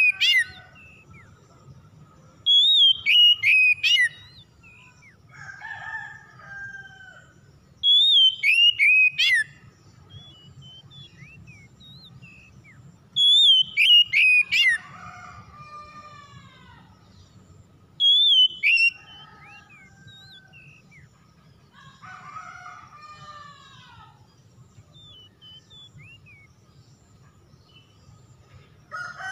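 Oriental magpie-robin singing: four loud, high whistled phrases about five seconds apart, each sliding downward and ending in a quick run of sharp notes, with fainter, lower calls between them.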